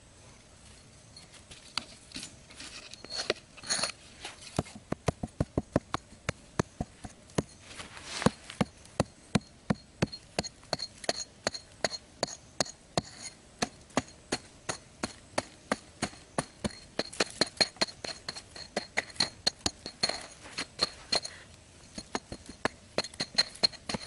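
Short-handled hoe chopping into dry, hard dirt to dig a hole, with quick repeated strikes of about three a second that begin about a second and a half in.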